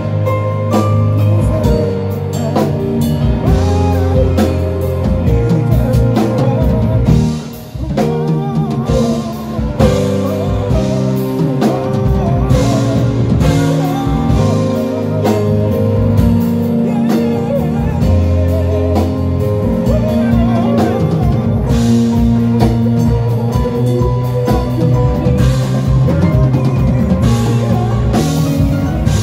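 Live band playing a gospel-jazz song: extended chords on a synthesizer keyboard with electric guitar and drum kit. The music drops out briefly about seven seconds in, then comes back in on a hit.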